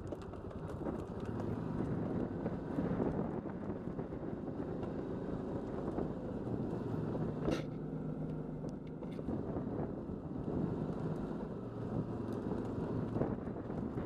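ATV engine running steadily at low revs on a downhill dirt track, with the machine rattling over the rough ground and a sharp knock about halfway through.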